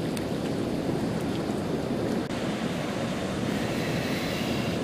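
Steady outdoor wash of wind and moving water: river current and surf, with wind buffeting the microphone.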